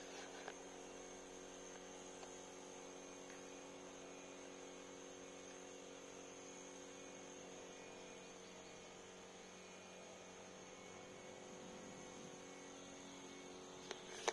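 Faint, steady electrical hum made of several steady low tones with a thin high whine over them. A couple of light clicks about a second before the end.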